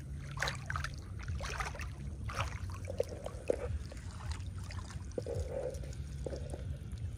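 Shallow water splashing and trickling in irregular bursts as someone wades and handles things in the water, over a steady low hum.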